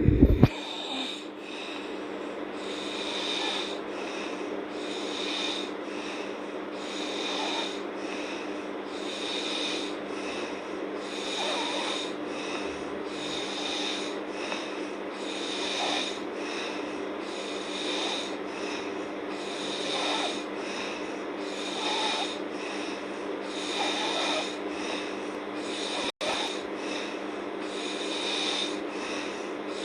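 A sleeping girl snoring, a rasping snore on each breath about every two seconds, over a steady low hum. A brief loud burst comes right at the start.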